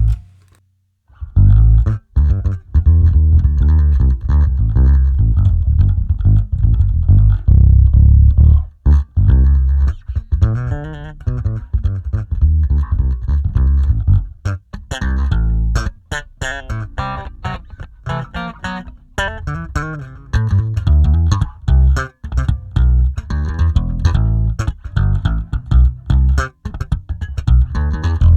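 Electric bass played through a 1073-style preamp, mostly dry with some Aguilar 4x10 cabinet impulse response blended in: a busy run of quick plucked notes with a clear, natural tone and little top end, starting about a second in.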